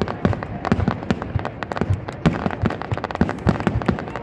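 Fireworks going off in quick, irregular succession: many sharp bangs and crackles, several a second, overlapping one another.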